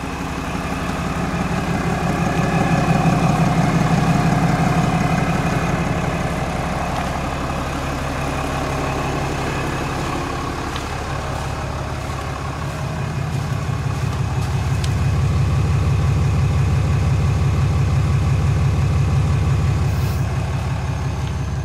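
Cummins 6.7-litre inline-six turbo-diesel of a 2021 Ram 2500 idling steadily, heard from outside the truck. It grows louder twice, about three seconds in and again through the last third, when it is heard at the exhaust tip.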